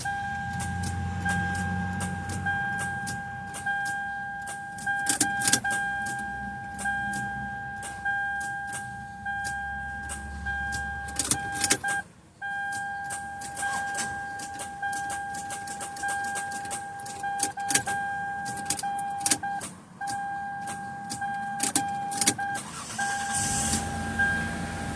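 Lexus that won't start: a steady, high electronic warning tone sounds with a few brief dropouts, over many irregular clicks as the key is worked, and the engine does not catch.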